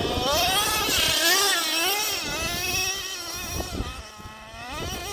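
Traxxas Slayer Pro nitro RC truck's small nitro engine revving, its high whine rising and falling over and over as the throttle is worked, easing off about four seconds in.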